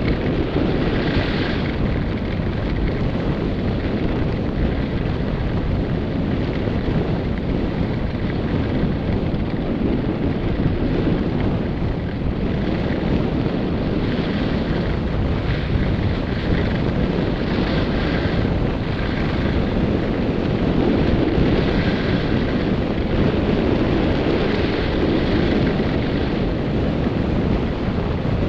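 Wind buffeting a helmet-mounted camera's microphone while skiing downhill, a steady low rumble. Over it comes a recurring hiss of skis scraping across groomed snow on the turns.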